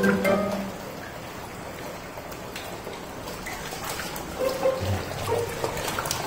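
Water from a garden hose spurting and trickling across a wet concrete floor, with a brief pitched sound at the very start.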